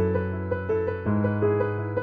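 Keyboard music: a repeating higher note figure over held bass notes that change about every second and a half.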